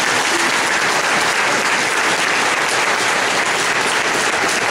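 Crowd of people applauding, a steady dense clapping that holds at an even level.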